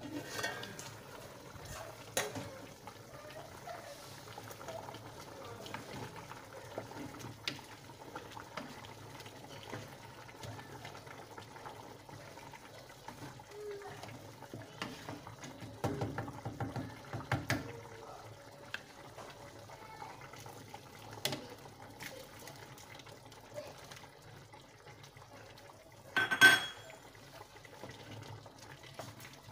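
An aluminium cooking pot's lid lifted off with a clatter, then a wooden spoon stirring and scraping through simmering stew, with liquid sloshing and occasional knocks against the pot. A sharp, ringing clang of metal comes near the end.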